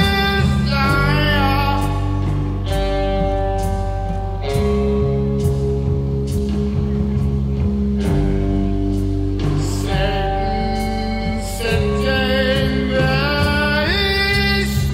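A song with sung vocals over guitar and a heavy bass line.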